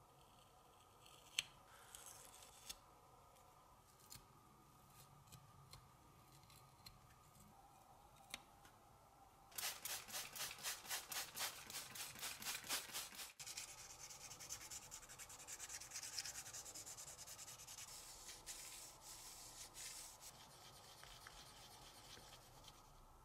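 Fine abrasive paper rubbed on the painted tin toy boat's parts: a few seconds of quick back-and-forth strokes about ten seconds in, then steadier, fainter rubbing. A few sharp little clicks of a craft knife trimming a decal come near the start.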